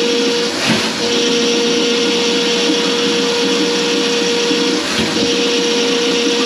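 An electric motor running steadily with a constant whine, briefly faltering about a second in and again near the end.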